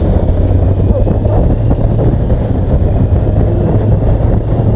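Kawasaki Z900's inline-four engine running at a steady cruise, with wind rushing over the microphone.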